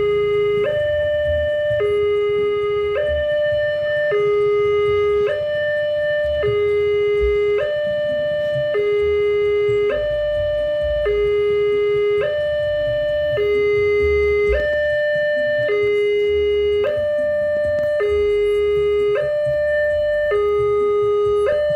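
Railway level-crossing warning alarm sounding while the barriers are down for an approaching train: an electronic two-tone signal alternating steadily between a low note and a higher note, each held about a second, over a low rumble.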